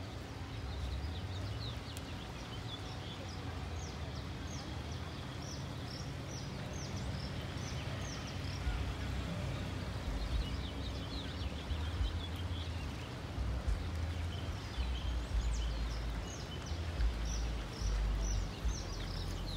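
Birds chirping in many short, quick, high notes, thickest in the first half and again near the end, over a steady outdoor hiss and an uneven low rumble that grows heavier in the second half.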